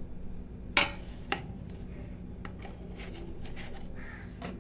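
Metal spoon clinking and scraping against a bowl as curd is spooned in: one sharp clink about a second in, another soon after, then lighter taps and a last clink near the end.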